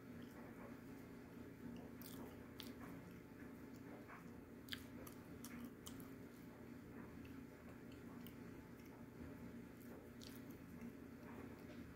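Faint chewing of crunchy edible clay, with scattered small crunches and mouth clicks.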